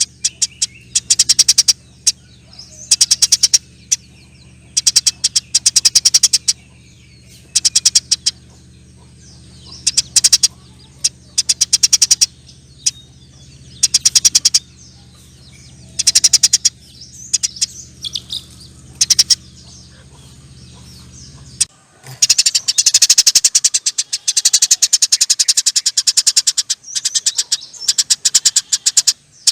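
Eurasian tree sparrow chattering: short bursts of rapid, dry, high notes repeat every second or two, then run together into near-continuous chatter for the last several seconds. A low steady hum underneath cuts off at the same moment.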